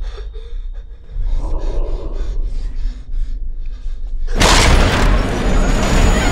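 Horror-trailer score and sound design: a deep rumbling drone under a fast, even pulse. About four seconds in, a sudden loud noisy blast cuts in and holds.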